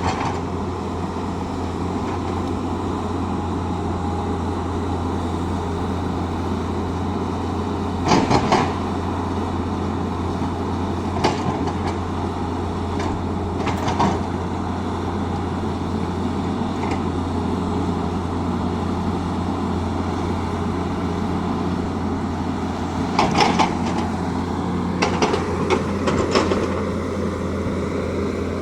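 Tata Hitachi excavator's diesel engine running steadily with a constant low hum, with a few sharp knocks, loudest about eight seconds in and in a cluster near the end.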